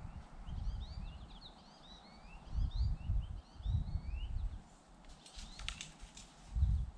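Small songbirds chirping in quick, short rising notes through the first half, then a brief burst of sharp clicking notes about five seconds in. Wind gusts buffet the microphone in uneven low rumbles, loudest near the end.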